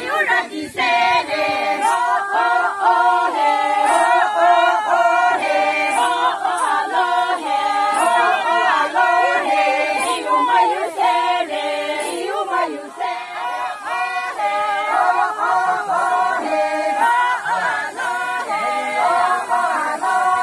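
A group of Sangtam Naga women singing a folk song together, unaccompanied, for a hand-held circle dance. Short high jingles, likely from ankle bells, sound every couple of seconds.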